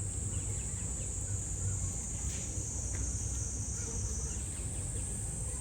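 Cicadas buzzing in a steady high drone, the sound thickening a little past the middle as more of them join in, over a low outdoor rumble.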